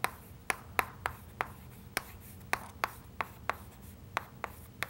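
Chalk on a chalkboard as capital letters are written, a sharp tap with each stroke, about two or three a second at an uneven pace.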